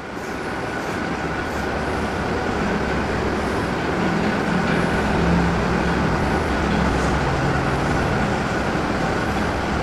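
A steady engine-like rumble of a motor vehicle with a faint high whine. It swells over the first couple of seconds and then holds level.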